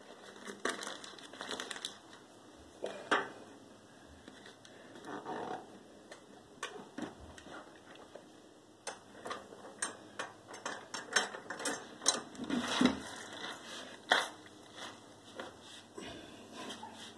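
Wet, pulped newspaper being squashed and packed by hand into a metal paper-log press, with scattered clicks and knocks from the metal box and its lever handles as they are swung over the top.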